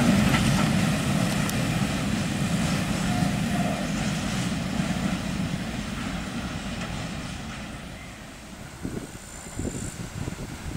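Freight train of open wagons rolling away along the track, its rumble of wheels on rail fading steadily as it recedes.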